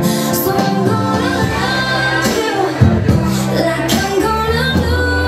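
Live dance band playing a song: held bass notes, drum and cymbal hits, and a melody line over the chords.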